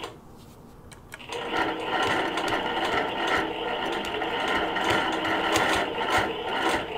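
Long-arm quilting machine starting up about a second in, then running steadily as its needle stitches a small fabric patch down onto the quilt.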